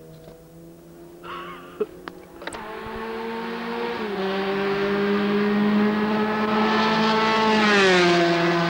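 Ralt RT3 Formula 3 car's four-cylinder racing engine at full throttle, coming down the straight and growing louder, with a single upshift about four seconds in. Near the end the engine note drops in pitch as the car passes by.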